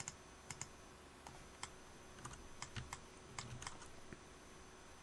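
Faint, irregular clicking at a computer: about a dozen light clicks from a mouse and keyboard, spread unevenly over a few seconds.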